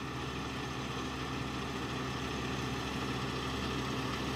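An engine idling steadily, a low even hum that grows slightly louder.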